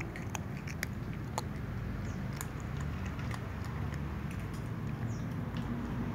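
Cats eating, a scatter of small crisp clicks of chewing and biting, over a steady low background rumble.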